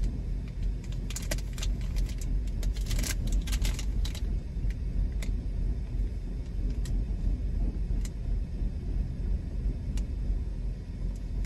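Plastic packaging and a foil fart-bomb packet crinkling and clicking as they are handled and pulled apart, busiest in the first few seconds and sparser after. A steady low rumble of the car cabin runs beneath.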